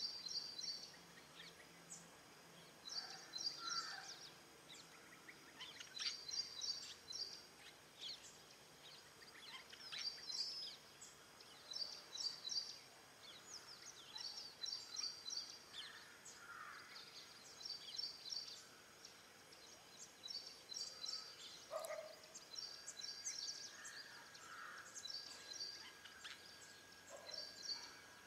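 Background birdsong outdoors: a short, high, stuttering phrase of rapid notes repeated every two to three seconds, with scattered lower chirps between. The greater coucal in view is not calling.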